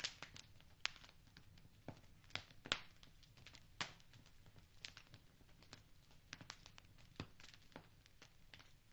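Wood fire crackling in a fireplace: irregular sharp pops and snaps, a handful of them louder, over a faint low background hiss.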